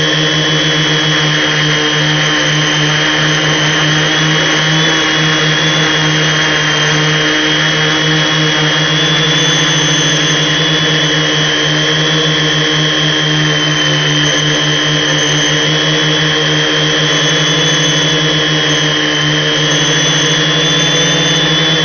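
Multirotor's brushless electric motors and propellers whining steadily in flight, with a high whine whose pitch wavers only slightly.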